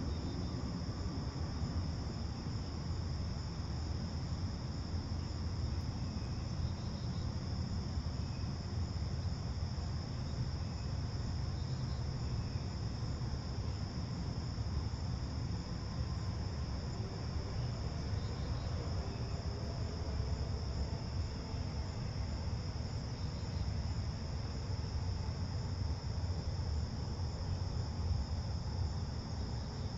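Steady, unbroken chorus of crickets trilling, with a low steady rumble underneath.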